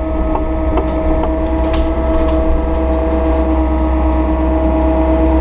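Takeuchi TB260 excavator's diesel engine running steadily under work, with a steady whine over the low rumble and a few light clicks in the first second.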